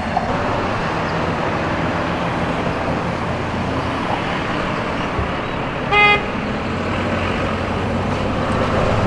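Steady outdoor traffic noise, with one short horn toot about six seconds in.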